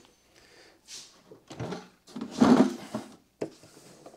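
Plastic clunks and scraping of a Festool CT 36 dust extractor's latches and top being undone and the motor head lifted off its container, the loudest clunk about halfway through, with a short knock near the end.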